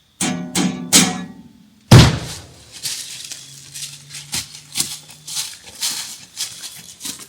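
Three short plucked musical notes, then a sharp loud knock about two seconds in, followed by a run of small irregular clicks and rattles.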